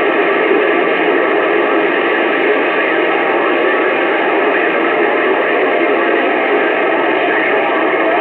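CB radio receiver putting out a steady rush of static on an open channel, squeezed into the radio's narrow band, with faint warbling tones running under the hiss.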